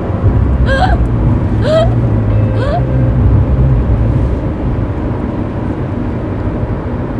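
Low steady rumble of a car cabin's road and engine noise, heaviest in the first few seconds. Over it, a high voice gives three short rising cries about a second apart in the first three seconds.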